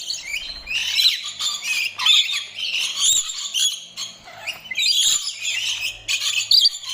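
Many small birds chirping and chattering at once in a dense, overlapping chorus of high, quick calls, which eases briefly around the middle.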